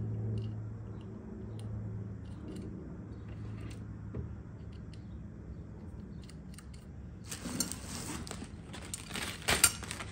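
Brass drawer hardware and its screws being taken off a wooden dresser drawer by hand: light metallic clicks and clinks, then a few short scraping sounds over the last few seconds.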